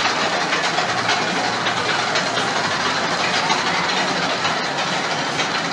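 Steel roller coaster train rolling along its track overhead, a steady rolling noise.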